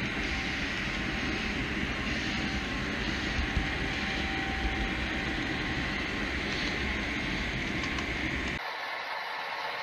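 HO-scale model train running on the layout track, heard close from a camera riding on the train: a steady rolling rumble and hiss. The low rumble stops abruptly near the end.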